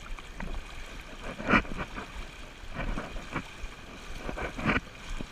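River water running, with a few short splashes and wind rumble on the microphone.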